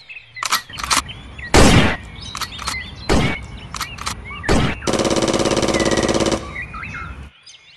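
Gunfire sounds: a few single shots, then a rapid machine-gun rattle lasting about a second and a half.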